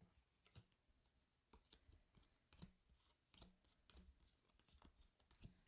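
Faint handling of Pokémon trading cards: soft taps and slides as cards are picked up and set down one after another, with light ticks every half second to a second.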